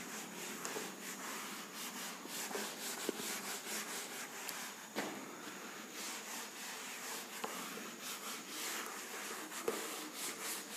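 Whiteboard eraser rubbing marker writing off a whiteboard, with repeated wiping strokes.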